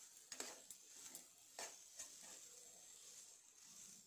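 Faint scrapes and taps of a steel spoon against a nonstick pan as boiled potato is mashed and stirred, a few irregular strokes in the first half.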